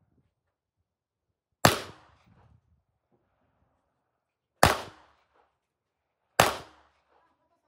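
Three pistol shots, the second about three seconds after the first and the third under two seconds after that. Each is a sharp crack that dies away in a short echo.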